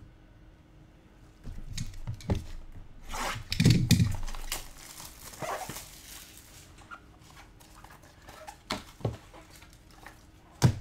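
Trading card boxes and packaging being handled on a table: scattered knocks and taps, a louder rustle and scrape about three to four seconds in, then a few sharp clicks near the end.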